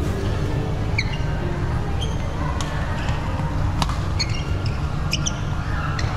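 Badminton rally on a wooden court: sharp racket strikes on the shuttlecock and brief high squeaks of court shoes, over a steady low rumble in the hall.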